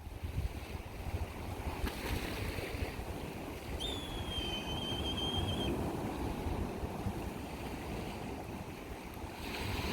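Wind buffeting the microphone over the rush of surf, a steady noisy rumble. A single high, steady whistle-like tone sounds for about two seconds midway.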